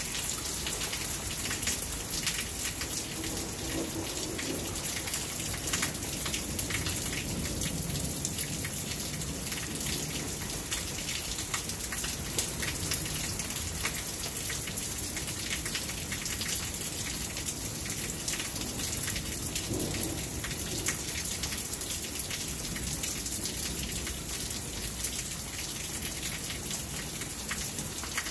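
Steady rain falling, a constant hiss dotted with many sharp drop hits, with low rumbles of thunder coming and going, a few seconds in and again near the twenty-second mark.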